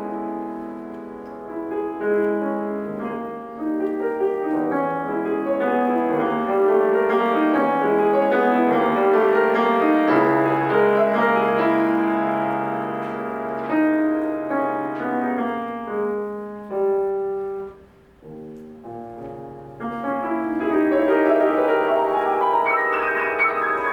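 Solo piano playing a classical piece: chords and moving lines, a short quiet pause about eighteen seconds in, then a fast rising run near the end.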